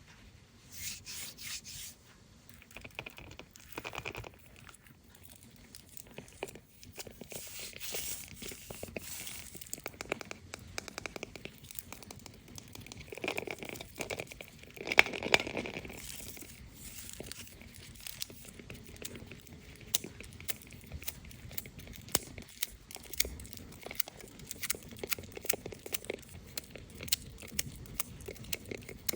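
Foil wrapping of a Kinder Surprise chocolate egg being torn open and crinkled by hand: rustling with many sharp crackles, loudest in a burst of tearing about halfway through.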